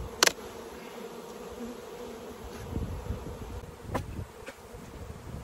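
A large colony of honeybees buzzing around an opened hive, a steady hum that holds one pitch. A sharp knock sounds about a quarter second in, the loudest thing heard, and a softer one about four seconds in as the wooden hive box is handled.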